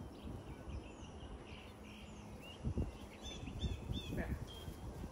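Wild birds calling outdoors, with scattered chirps and then a quick run of short repeated chirps, about three a second, from about three seconds in. A few dull low thumps sound under them, the loudest near the middle.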